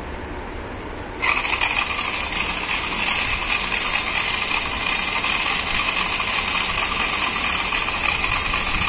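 Small DC motors of a solar-powered robotic grass cutter switched on about a second in, then whirring steadily as the wheels drive the robot across the floor.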